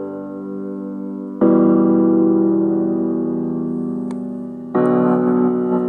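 Piano chords played back through a Tronsmart Element Groove portable Bluetooth speaker. A new chord is struck about a second and a half in and again near the end, each held and slowly fading.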